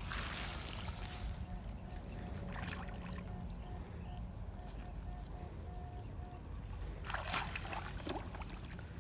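Swishing and sloshing through wet grass and shallow water in a flooded field, two short swishes about a third of the way in and near the end, the second the louder, over a steady low rumble and a faint steady high whine.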